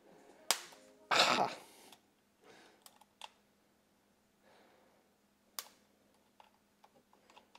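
Sparse small metal clicks and ticks of wire ring terminals and a nut being fitted onto golf-cart battery terminal posts, with a short hiss about a second in.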